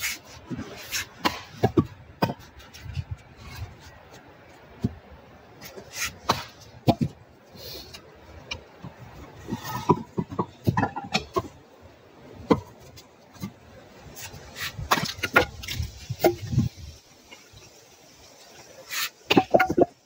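Axe splitting birch firewood on a chopping block: a run of irregular sharp strikes and cracks as the logs split, with split pieces knocking and clattering together.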